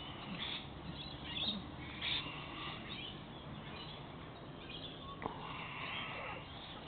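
Staffordshire bull terrier puppies squeaking and yipping while they play with an adult dog: several short high-pitched yips in the first two seconds, then a longer whine near the end. A single sharp click comes a little after five seconds.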